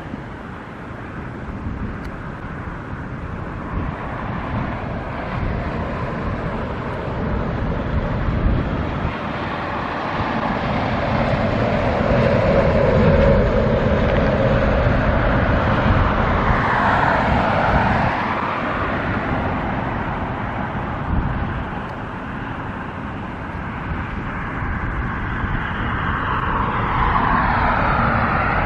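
Outdoor traffic: vehicles passing by, one swelling and fading about halfway through and another near the end, over a steady low rumble.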